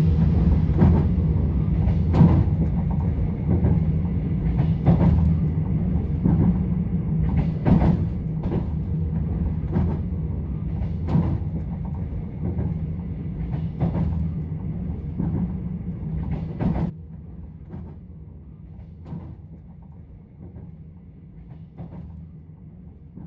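Train running on rails: a steady low rumble with sharp wheel clicks over the rail joints every second or so. About two-thirds of the way through, the sound drops suddenly to a quieter rumble with fainter clicks.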